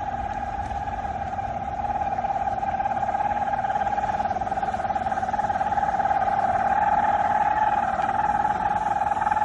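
A loud, steady droning tone held at one pitch, with fainter higher overtones over a low rumble, swelling slightly about two seconds in: the kind of recording passed off as a mysterious sound in the sky.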